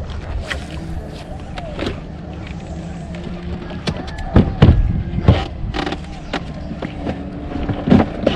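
A boat's motor running low and steady, with knocks and clatter of gear being handled on the boat; the loudest knocks come about halfway through and near the end.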